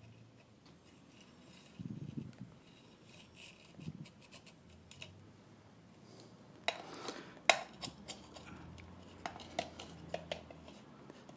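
Needle-nose pliers working small wires through insulating tubing in a metal lamp housing: soft handling rustles, then a run of small sharp metallic clicks and ticks in the second half.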